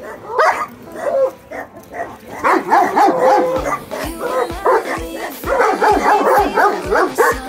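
Young German Shepherd on a leash barking and whining in repeated excited bursts, a sign of its excitement and reactivity on the leash. Background music with a steady beat comes in about halfway through.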